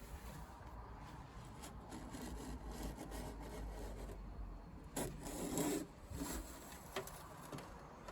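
A blade cutting and scraping through a worn-out rubber window seal in a Land Rover Series 3 side panel: a steady rubbing, rasping sound, louder for a moment about five seconds in, with a couple of sharp clicks.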